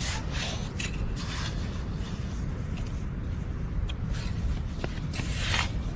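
A small digging tool scraping and cutting into wet beach sand in short strokes, with a longer, louder scrape near the end; a low steady rumble runs underneath.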